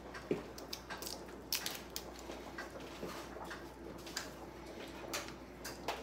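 Faint soft rustling and squishing, with a few light taps, as hands press a steak into seasoned flour in a ceramic bowl. A faint steady hum runs underneath.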